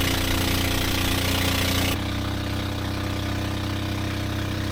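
Boat engine running steadily and loud, with a slight drop in level about two seconds in.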